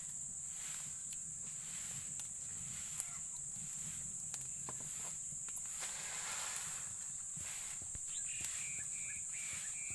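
Steady high-pitched drone of insects, with a few faint clicks and a short pulsing chirp near the end.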